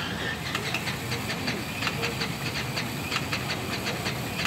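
Jacobs seven-cylinder radial aircraft engine being cranked over on its test stand: a steady hiss with quick, regular pulses at about five a second, the engine turning but not yet running.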